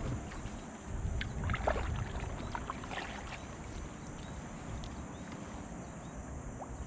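Low steady rumble of wind and water around a kayak, with a few faint short high sounds between about one and three seconds in.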